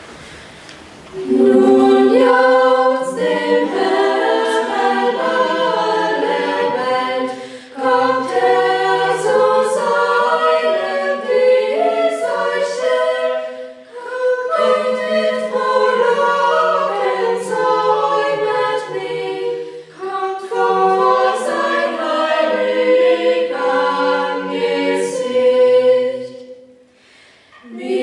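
Small youth choir of girls' voices with a boy's voice singing unaccompanied. The singing starts about a second in and goes in phrases broken by short breaths, with a brief pause near the end.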